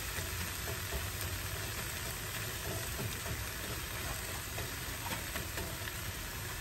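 Akabare chillies and lemon pieces frying in oil in a pan, a steady sizzle, as a wooden spoon stirs the chillies.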